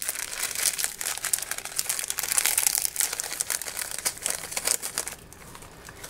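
Small plastic seasoning sachet of dried flakes crinkling as it is handled and emptied into a plastic bowl. The crackling is dense for about five seconds, then dies down near the end.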